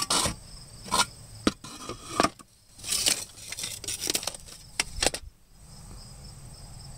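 Irregular knocks, clicks and scrapes of loose old truck parts being handled and moved by hand, ending about five seconds in, with crickets chirping steadily in the background.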